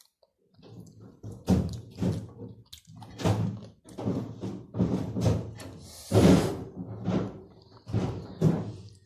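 Close-up eating noises: a run of chews and crunches of food, roughly one a second, the loudest about six seconds in.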